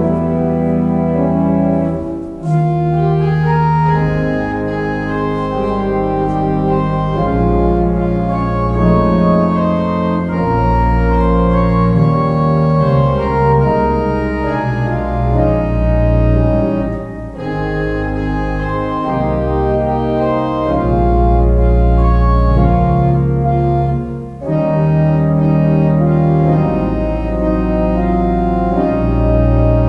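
Church pipe organ playing sustained chords over a deep pedal bass, the chords changing about every second, with short breaks between phrases about two seconds in and twice later.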